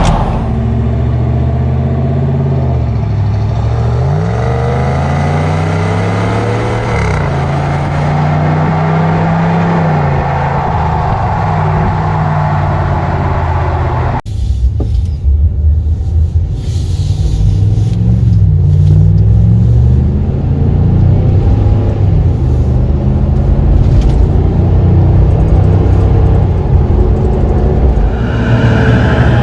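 Ram 1500 Hemi V8 running at low revs through a Totalflow aftermarket muffler on the dual exhaust, a deep steady rumble. Its pitch sags and rises a few times, and the sound breaks off for a moment about halfway through.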